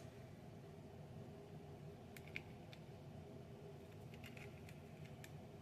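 Faint, scattered clicks of plastic LEGO pieces being handled and pressed together: a few about two seconds in, and a small cluster between four and five seconds in, over a low steady hum.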